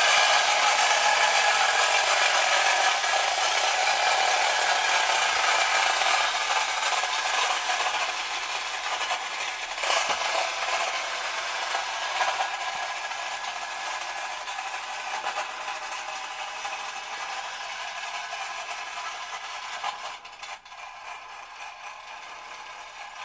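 Spring-driven clockwork motor of a Marx tin-litho wind-up toy helicopter running, a steady whirring rattle that slowly fades as the spring unwinds. It drops away sharply about twenty seconds in, as the spring runs down.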